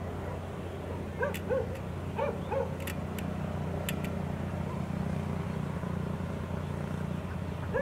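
Kubota DC70 combine harvester's diesel engine running steadily under load as its rotary tiller churns a flooded rice paddy, with ducks giving short quacks several times over the engine and a few sharp clicks.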